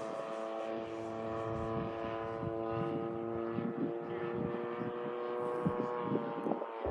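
DLE 55 single-cylinder two-stroke gasoline engine of an RC scale Zero in flight, a steady propeller drone that drops slightly in pitch near the end. Gusts of wind rumble on the microphone beneath it.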